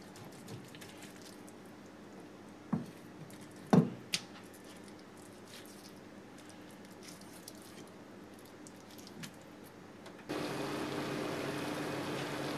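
Kitchen knife cutting and scraping wet raw tuna collar on a wooden cutting board, trimming away the blood meat, with a few sharp knocks against the board about three to four seconds in. Near the end it changes suddenly to a pot of water at a rolling boil, a steady bubbling hiss.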